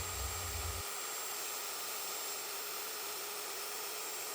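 Steady, even hiss with a low hum underneath that stops about a second in; no distinct strokes or cutting sounds.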